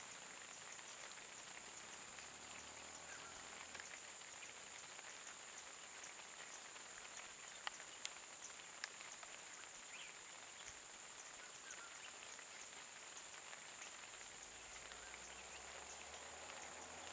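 Faint outdoor ambience with a steady high-pitched drone and a few sharp ticks around the middle; a vehicle engine idles low, coming in near the end.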